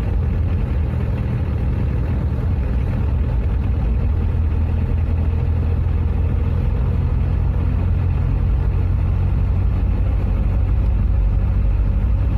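Car engine running steadily while cruising in fifth gear, heard from inside the cabin as an even low hum.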